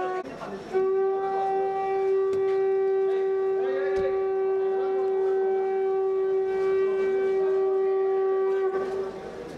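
Conch shell (shankha) blown in one long, steady note. It breaks briefly for breath just after the start, then is held for about eight seconds and stops near the end.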